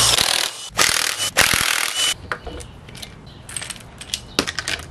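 Cordless impact wrench hammering on a timing-gear bolt of a VQ37VHR V6 in three short bursts over the first two seconds, breaking it loose. After that come light metallic clicks and clinks as the loosened sprocket and timing chain are handled off the engine.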